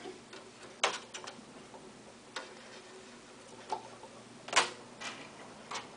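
A few scattered sharp clicks and light knocks of metal parts being handled as the moistening roller and its bracket are taken out of an envelope sealer, the loudest about four and a half seconds in.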